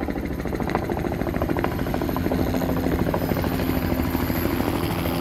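Approaching helicopter, its rotor chopping in a rapid even rhythm that grows a little louder.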